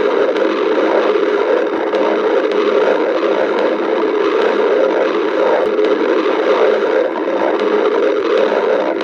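Stomach growling sound effect: a loud, continuous rumbling gurgle that keeps going without a break.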